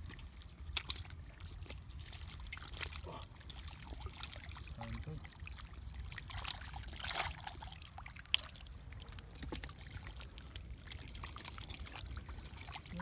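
Gloved hands digging and scooping through wet mud and shallow water, squelching and splashing irregularly, with one sharp click about eight seconds in.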